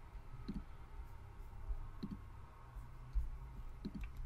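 A few faint computer mouse clicks, about three spread out over a low steady hum.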